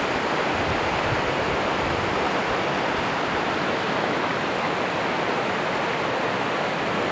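River water rushing, a steady even noise of running water.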